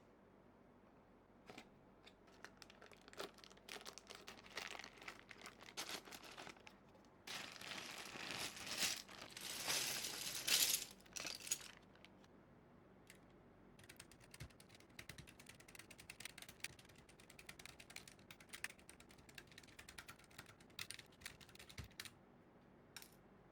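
Typing on a Keychron K3 low-profile mechanical keyboard fitted with Gconic A75 MKII keycaps: scattered key presses, then a fast, louder run of typing in the middle, then lighter, sparser key presses.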